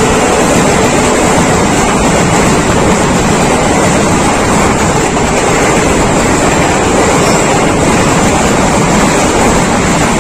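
Loud, steady rushing noise of a moving passenger train heard from on board: wheels on the rails and the rush of air, with no pauses or distinct events.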